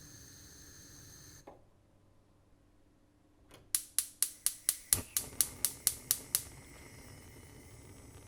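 Cooking hob: a burner running with a steady hiss shuts off with a click. Then its spark igniter clicks about a dozen times, roughly four a second, with one low thump partway through, and the burner lights and settles into a steady hiss.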